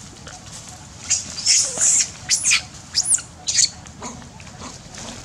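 Macaque screaming: a run of about six shrill, high-pitched screams starting about a second in, some rising and falling in pitch, ending shortly before the last second.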